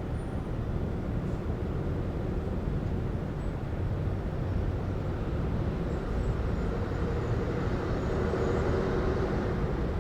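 City traffic ambience: a steady low rumble of vehicles, with a nearer vehicle's engine growing louder in the second half.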